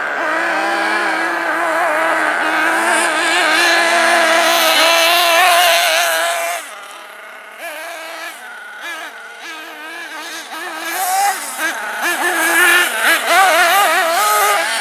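Small two-stroke nitro engines of radio-controlled truggies running at high revs, their pitch rising and falling as they accelerate and lift off. The sound drops away sharply partway through and builds up again near the end.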